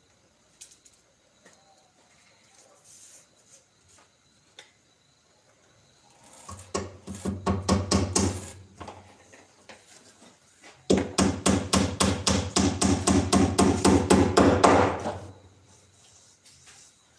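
Rapid, even knocking of a tool on wood, about six knocks a second, in two runs: a shorter one about six seconds in and a longer one from about eleven to fifteen seconds in.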